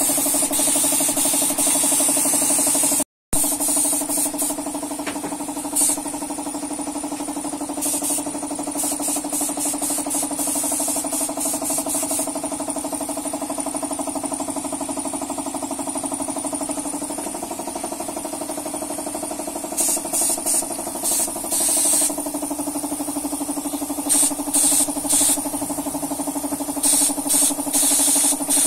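Air compressor motor running steadily with a hum, feeding a paint spray gun. Over it come short hisses of air and paint from the spray gun as the trigger is pulled, several in quick succession, mostly in the second half.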